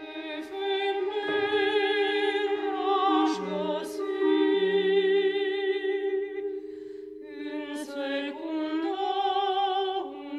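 Contemporary chamber music for a vocal ensemble: voices sing long held notes with a wavering vibrato over sustained tones, a lower note entering briefly in the middle. A few short, sharp strikes cut in here and there.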